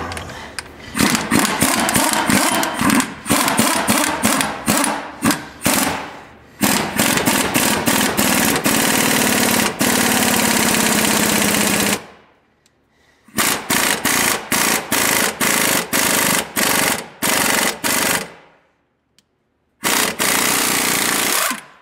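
Impact wrench hammering in repeated bursts as it drives the screw of a C-frame ball joint press, pushing the old lower ball joint out of the control arm. A long unbroken run gives way about halfway to a pause, then a string of short bursts, another pause, and one last burst near the end.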